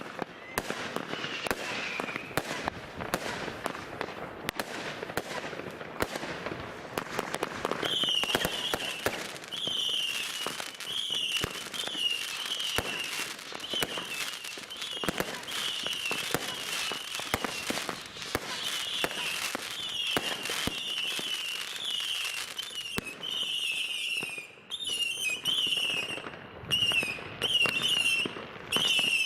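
Fireworks going off: a dense run of bangs and crackles, and from about eight seconds in a string of short, high whistles from whistling fireworks, one after another about once a second.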